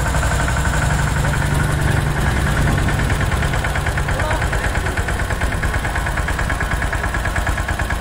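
DK Champion 165 DI mini tractor's water-cooled Field Marshal diesel engine running steadily, with a rapid, even firing beat.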